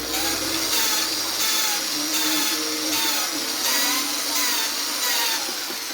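A valve being lapped into its seat in an LQ4 6.0 L cylinder head with grinding compound, spun through a hose on the valve stem: a steady gritty grinding with a power-tool whine, pulsing in a regular rhythm about twice a second as the turning direction changes.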